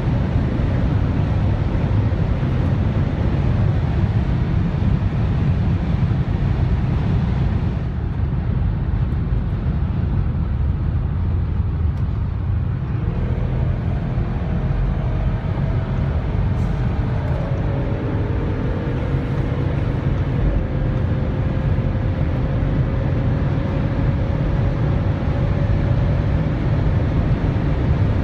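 Inside the cabin of an Audi RS6 Performance at very high Autobahn speed: a steady, loud rush of wind and road noise over the drone of its twin-turbo V8. About a third of the way in the rush eases as the car slows, then a faint engine tone rises slowly as it gathers speed again.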